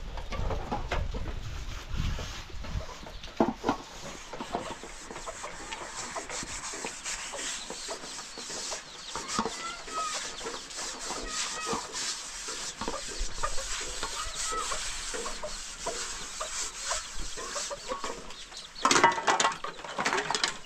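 Chickens clucking, among scattered knocks and rubbing, with one louder noise lasting about a second near the end.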